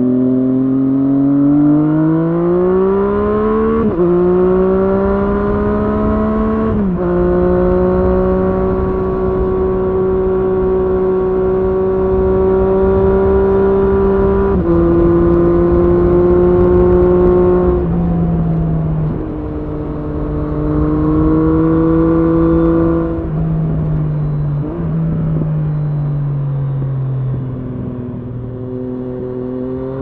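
Triumph Street Triple S inline-three engine through an SC-Project SC1-R slip-on exhaust with its dB killer fitted, under way: it revs up with the pitch dropping at two upshifts in the first seven seconds, then holds a steady pitch with a couple more gear changes. Near the end it eases off with falling pitch, then picks up again.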